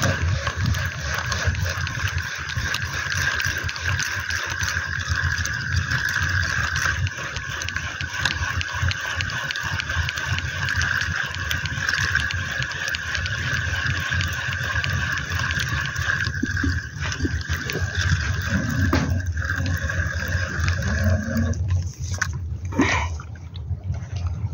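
Spinning reel being cranked to retrieve the line, a steady whirring from its gears that stops about three seconds before the end, over wind rumbling on the microphone. A couple of short knocks follow as the reeling stops.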